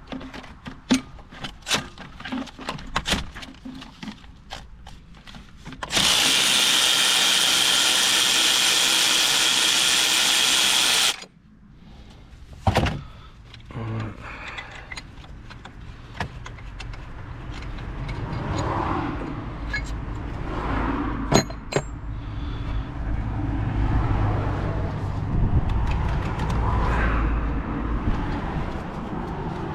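Hand tools clicking and knocking on metal engine-bay parts, then a cordless power tool runs steadily for about five seconds, loosening a fastener on the gearbox, and cuts off suddenly. After that, lighter clatter over a low rumble.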